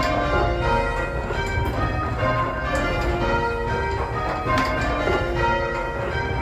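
A ring of six church bells rung full circle by hand, struck one after another in steady, even succession so the tones overlap continuously. It is heard from the ringing chamber beneath the bells, with a low rumble under the ringing.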